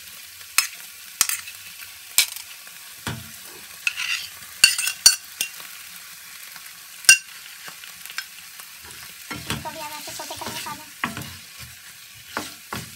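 Onions and diced potatoes sizzling in oil in a frying pan, a steady hiss, while a wooden spoon scrapes and knocks against the pan as chopped tomatoes are tipped in and stirred through. Sharp knocks come every second or so in the first half, with a longer spell of scraping a few seconds from the end.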